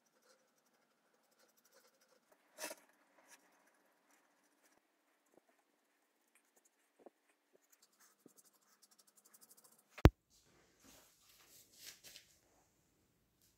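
Quiet scratching of a paintbrush's bristles working over the inside of a wooden vessel, with a small knock a few seconds in and faint ticks. About ten seconds in there is one sharp click, the loudest sound.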